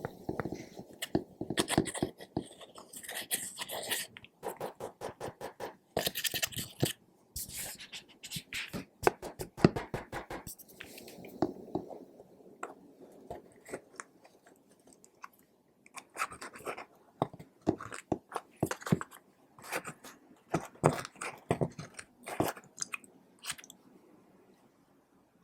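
Clear slime being squished and kneaded by hand: runs of rapid wet clicks and pops, coming in several bursts and growing sparser in the second half.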